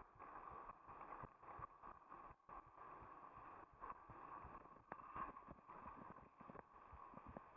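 Mountain bike ridden over a dry dirt trail: a faint steady hiss of riding, with irregular knocks and rattles as the bike goes over bumps.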